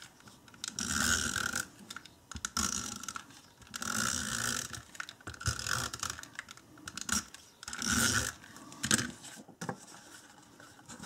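Handheld tape runner drawn across cardstock in about six short strokes, each a rasping, ratchet-like whirr as the adhesive tape unrolls onto the card.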